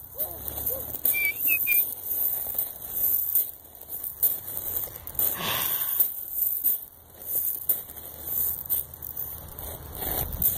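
Small feet scuffing and crunching over loose pea gravel, uneven and broken, with a few short high whistle-like chirps about a second in.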